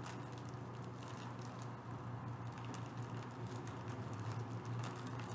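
Clear plastic packaging crinkling and rustling as it is handled, in scattered light crackles over a steady low hum.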